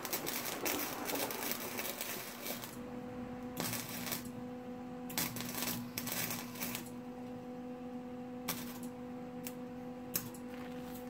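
Wire-feed welder welding a muffler pipe: irregular bursts of crackling as short welds are laid on the joint. A steady low hum comes in about three seconds in.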